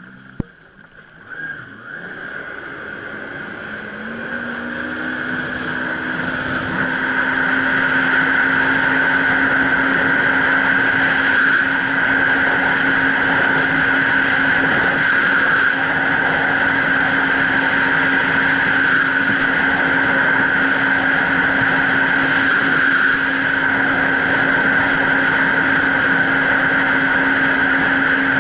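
Jet ski engine speeding up over the first several seconds, rising in pitch and loudness, then running steadily at speed with a high whine.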